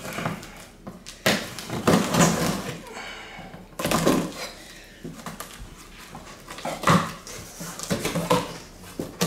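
Knife blade slicing through packing tape along the seams of a cardboard box in several scratchy strokes, then the cardboard flaps being pulled open near the end.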